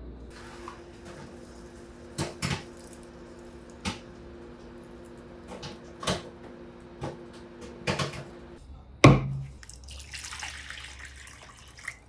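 Water running from a tap into a sink, with a steady hum that stops about eight and a half seconds in, and several sharp knocks. The loudest knock comes about nine seconds in.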